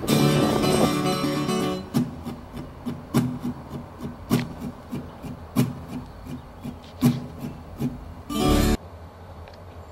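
Acoustic guitar music: a fuller strummed passage, then separate strums about once a second. Near the end the guitar stops, leaving a faint steady background noise.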